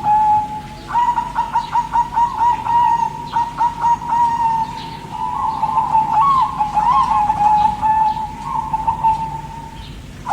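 Zebra dove (perkutut) cooing: a long run of quick, ringing, stuttering coo notes that warble around one pitch, with short higher chirps over it.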